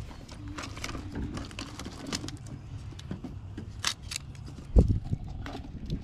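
Rustling and light clicks of food wrappers and a plastic bottle being handled, over a low rumble, with one heavy thump a little before five seconds in.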